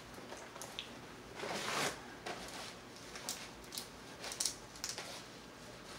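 Hands pulling apart a boiled crawfish: wet squishing and several sharp little cracks of the shell in the second half. There is a papery rustle of a napkin about one and a half seconds in.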